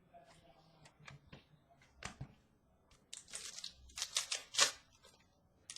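Trading cards being handled: scattered light clicks and short scratchy rustles of card stock sliding against card stock, busiest in the second half.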